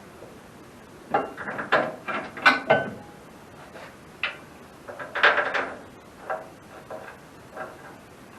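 Metal parts being handled and fitted by hand: irregular clinks and knocks, some briefly ringing. They come thickest in the first three seconds and again about five seconds in.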